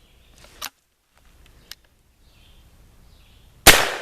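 A single loud shotgun blast from an H&R Pardner single-shot .410 near the end, dying away quickly, after a few faint clicks.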